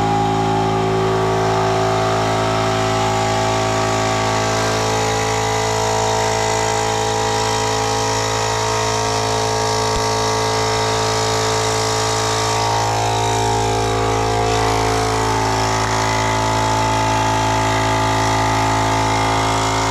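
Air compressor motor running steadily, filling the tubeless dirt-bike tire with air, with its pitch sagging slightly partway through.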